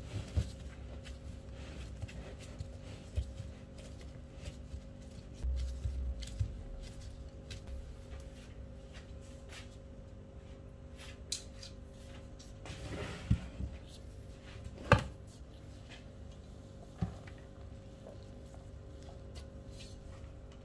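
Scattered light knocks and taps of cookware and utensils being handled on a table, the sharpest about three-quarters of the way through, over a steady faint hum.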